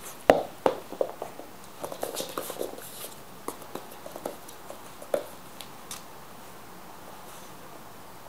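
A puppy playing on a large plush toy and wooden floor: a scatter of sharp clicks, taps and soft rustles, the loudest click just after the start, dying away about six seconds in.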